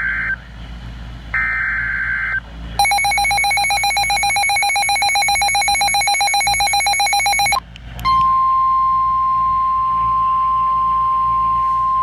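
Emergency Alert System tones on NOAA Weather Radio: two short screechy bursts of SAME header data, then a rapidly pulsing, buzzy alert tone for about five seconds. About eight seconds in, the steady single-pitch 1050 Hz weather radio warning alarm tone starts, signalling a warning about to be read.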